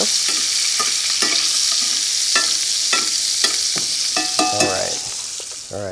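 Halibut fillets sizzling in hot foaming butter in a cast iron skillet while the butter is spooned over them, with a few light clinks of the metal spoon against the pan.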